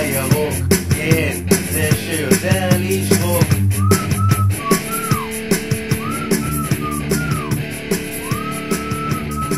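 Instrumental music with a steady drum beat and bass; about four seconds in, a high lead melody enters in short phrases that rise and fall.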